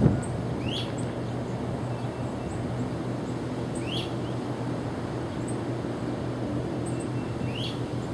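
Steady low hum of a diesel locomotive idling out of sight. A bird repeats a short call about every three and a half seconds, with small high chirps above it, and a brief thump comes right at the start.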